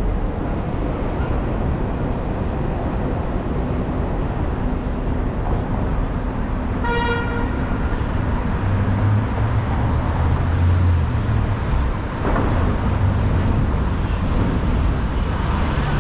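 Midtown street traffic noise, with one short car horn honk about seven seconds in and a low engine rumble of a passing vehicle swelling a little later.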